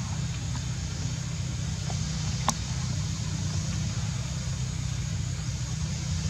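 Steady low engine-like hum, with one sharp click about two and a half seconds in.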